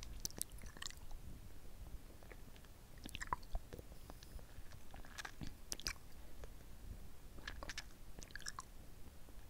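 Close-miked wet sucking and licking of a hard-candy lollipop, with smacking, clicking mouth sounds that come in clusters every couple of seconds.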